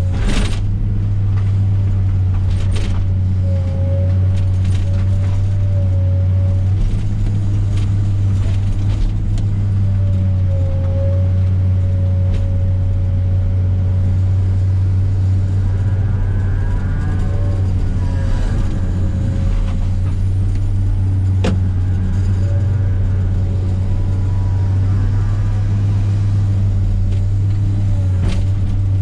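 Komatsu PC300 excavator's diesel engine running steadily under working load, with a wavering hydraulic whine over it and a few sharp cracks and knocks as brush is handled.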